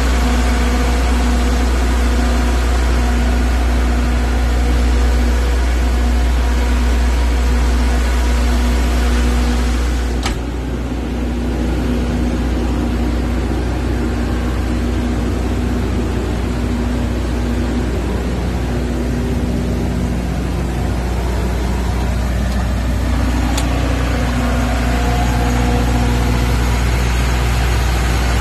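Diesel generator set running steadily: a constant low engine drone with a hum. There is a single click about ten seconds in, after which it sounds slightly softer.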